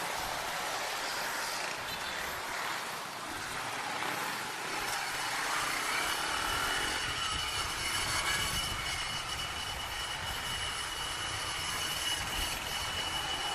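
Yamaha YBR 125 motorcycle under way: its single-cylinder engine runs through an aftermarket bullet-style exhaust with a silencer fitted, mixed with a steady rush of road and wind noise. A thin, steady high tone joins from about five seconds in.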